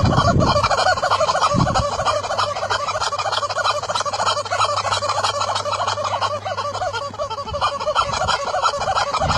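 Rubber squeaky chicken toy squawking over and over without pause as a horse bites and shakes it in its mouth.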